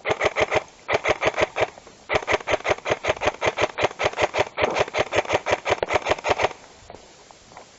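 Airsoft rifle firing on full auto, about eight shots a second, in three bursts: two short ones, then a long one of about four seconds.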